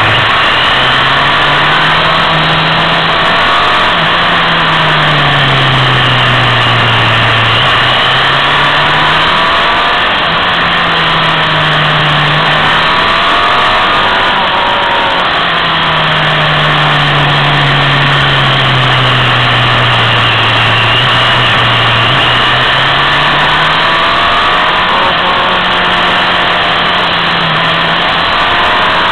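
Motorcycle engine heard from on board, its pitch climbing as the rider accelerates out of bends and sinking slowly as he eases off into the next, several times over. A steady rush of wind runs beneath it.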